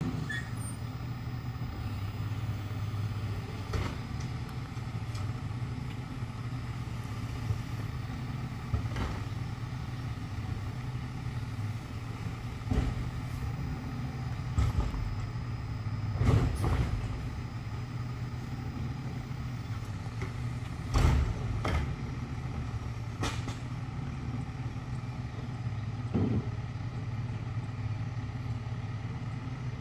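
Garbage truck engine idling steadily, with scattered clunks and knocks every few seconds, the loudest about halfway through and a little later.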